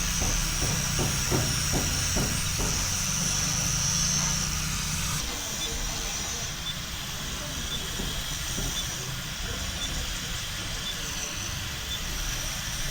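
Steady outdoor background noise: a low rumble under a high, even hiss. It changes abruptly about five seconds in to a quieter background with faint, regular high ticks.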